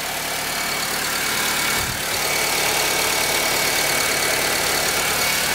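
2010 Honda Civic's four-cylinder petrol engine idling steadily with the hood open, freshly oil-changed. The valve train is quiet, and the light ticking is the solenoid-fired fuel injectors.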